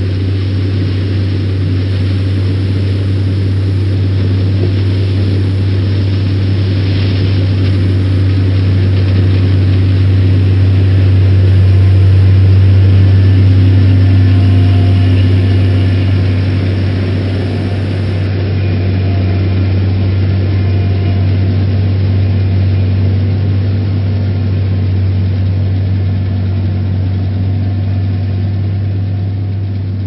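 Steady low drone of a combine harvester's engine running, swelling a little around the middle.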